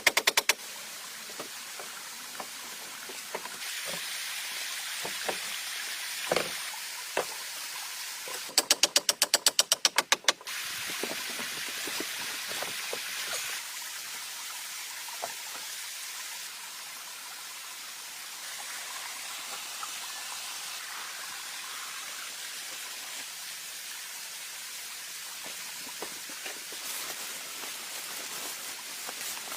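Scattered taps and knocks over a steady hiss, with a fast run of sharp, evenly spaced knocks, about seven a second, lasting about two seconds, starting about eight and a half seconds in.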